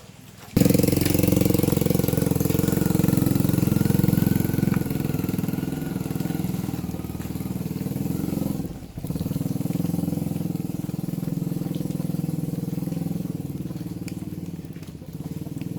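An engine running steadily. It starts suddenly about half a second in and dips briefly around nine seconds.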